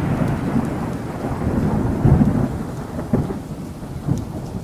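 Thunderstorm sound effect: steady rain with rolling thunder, the loudest rumble swelling about two seconds in.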